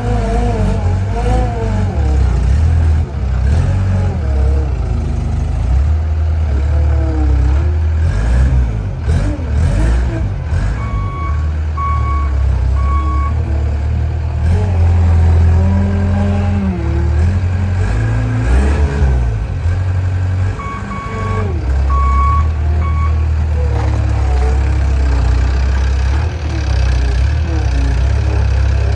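Skid steer loader working, its engine running loudly throughout with the pitch rising and falling as it is loaded and revved. The reversing alarm beeps in two short runs: three beeps about eleven seconds in and four more about ten seconds later.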